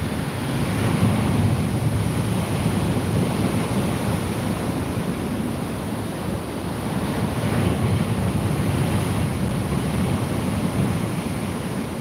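Storm surf breaking and washing up a shingle beach: a steady wash of waves that swells about a second in and again around eight seconds. Wind buffets the microphone.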